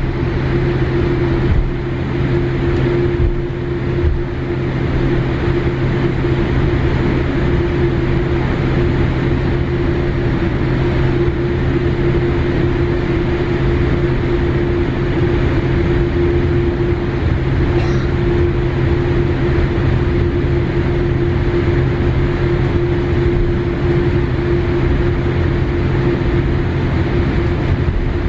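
Jet airliner's engines at idle as it taxis after landing, heard inside the passenger cabin: a steady drone with a constant low hum.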